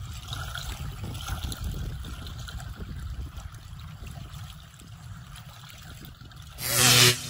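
Small waves lapping at a lakeshore, with wind rumbling on the microphone. Near the end comes a short, loud buzzing burst lasting about half a second.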